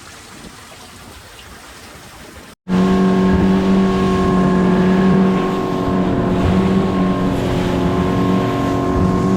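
Faint wind and water hiss, then after an abrupt edit cut the dory's outboard motor running loudly at a steady pitch, with water noise under it.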